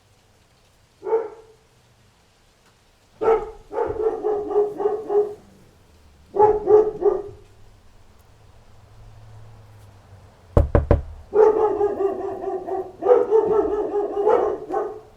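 A dog barking in bursts: a single bark, then quick runs of barks, and a longer, almost unbroken stretch of barking near the end. About ten and a half seconds in comes a quick cluster of sharp knocks.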